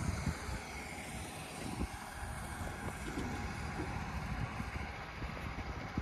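An engine running steadily.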